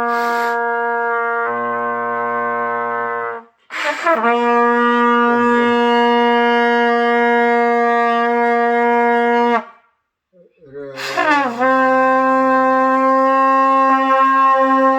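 Trumpet playing long held notes, each a few seconds long: one stops about three and a half seconds in, the next runs from about four to nine and a half seconds, and a third begins near eleven seconds with a slight upward scoop in pitch. These are beginner long-tone practice on the low "do" (written C), held without a break.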